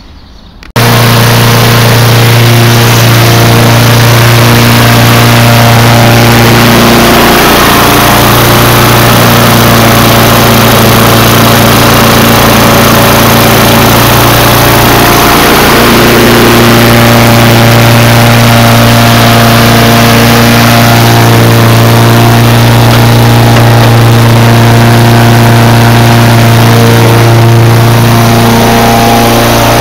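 Toro recycler walk-behind mower's 6.5 hp engine running steadily and very loud, close by, starting abruptly less than a second in and dipping briefly twice. The engine runs again after its carburetor has been cleaned.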